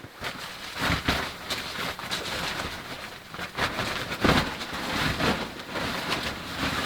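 Close rustling and crackling handling noise, with irregular knocks and scrapes, as camping gear is moved about near the microphone.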